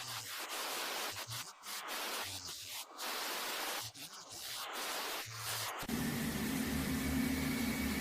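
A steady rushing hiss, cut off by several short gaps, changes about six seconds in to the steady low hum of a running engine.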